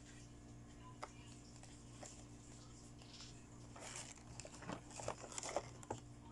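Faint clicks and rustles of small toy pieces and packaging being handled, over a low steady hum. There are single clicks about one and two seconds in, and a busier patch of small clicks near the end.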